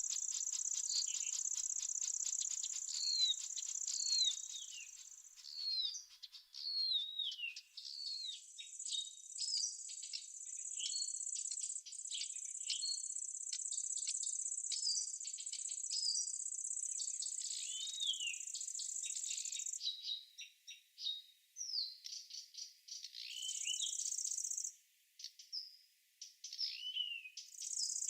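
Small birds chirping over a steady high-pitched insect trill. The trill cuts off about twenty seconds in and comes back in short spells near the end, while the short falling chirps carry on throughout.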